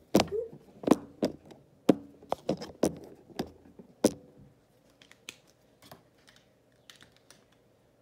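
Handling noise: a quick series of sharp knocks and clicks, about a dozen in the first four seconds, then a few fainter ticks.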